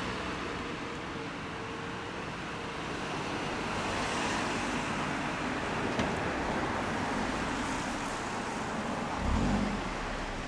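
Road traffic noise: a steady wash of passing vehicles, with a brief low rumble near the end.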